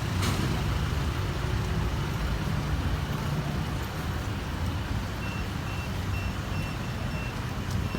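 Steady rumble of vehicle engines and traffic. Near the end comes a run of about six short, evenly spaced high electronic beeps, like a vehicle's warning beeper.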